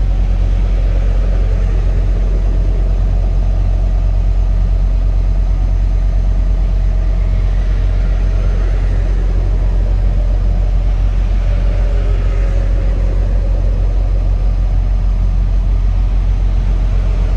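Semi-truck engine and road noise heard inside the cab while driving, a steady low drone.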